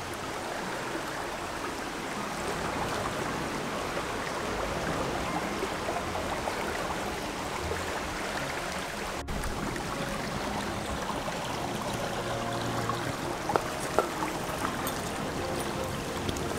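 Stream of water running steadily over rocks, with a few sharp clicks near the end.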